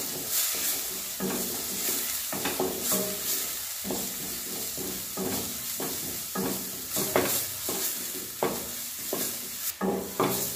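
A paste of onion, ginger, garlic and green chilli with spices sizzles in hot mustard oil in a stainless steel pan. A spatula stirs it, scraping across the pan bottom in short strokes at an uneven pace, about once a second.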